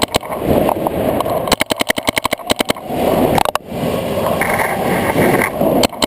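Paintball markers firing in rapid strings of shots, about ten a second: one string at the start, another from about a second and a half to nearly three seconds in, and another starting near the end, with a rustling haze between the strings.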